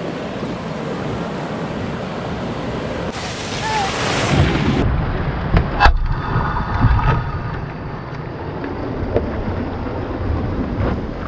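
Wind buffeting the microphone over waves and water around a kayak at sea, as a storm front comes in. About three to five seconds in the rush of water and wind gets louder, and near six seconds there is a single sharp knock.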